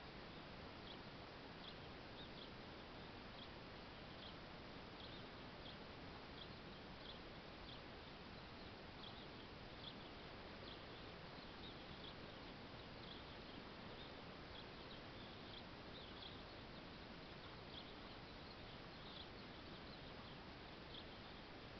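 Near silence: a steady hiss with faint, short high-pitched chirps repeating about once a second.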